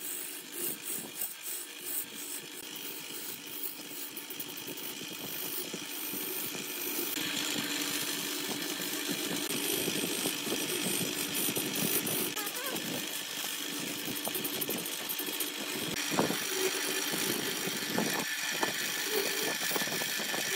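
Electric wood lathe running while a gouge cuts the spinning wooden vase blank: a steady motor hum under the hiss of the tool shaving the wood. The cutting hiss grows louder about seven seconds in, with a few short scraping strokes near the end.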